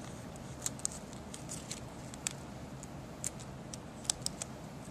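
Small scattered crackles and clicks of paper and clear tape being pressed and smoothed together by fingers, over steady room tone.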